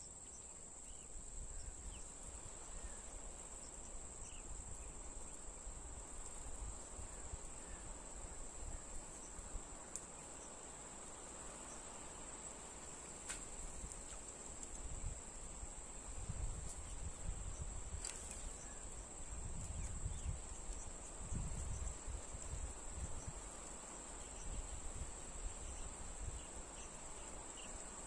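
A steady high-pitched drone of insects, unbroken throughout, with low rumbling around the middle and a few faint clicks.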